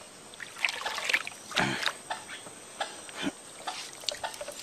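Shallow muddy water splashing and trickling as a plastic-bottle fish trap is pushed into it, in irregular small splashes and dribbles, the loudest about one and a half seconds in.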